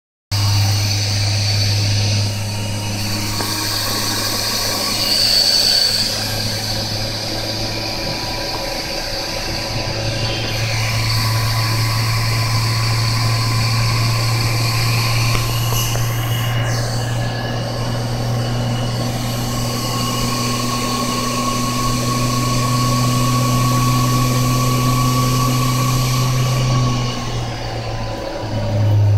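Freshly repaired Saccardo high-speed electrospindle running steadily under a variable-frequency drive, a low hum with a steady high whine over it; near the end the tone falls slightly as the speed changes.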